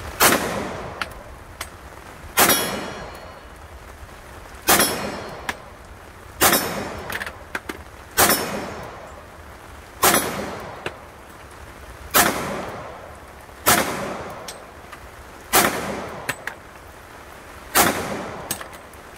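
Smith & Wesson SD40 VE pistol in .40 S&W firing ten single shots in slow fire, about one every two seconds, each with a short echoing tail. Faint clinks fall between some shots over a light hiss of rain.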